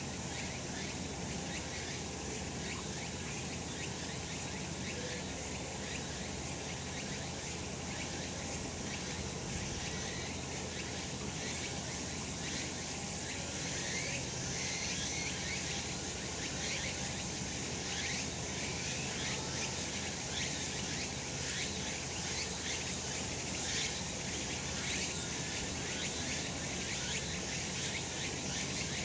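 Cicadas singing in a dense, high-pitched chorus full of short, quick pulses, swelling a little louder about halfway through.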